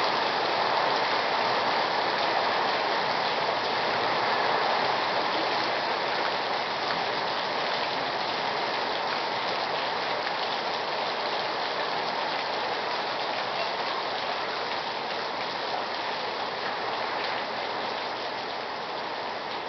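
Heavy rain pouring down steadily on wet pavement, a continuous hiss of drops that eases slightly toward the end.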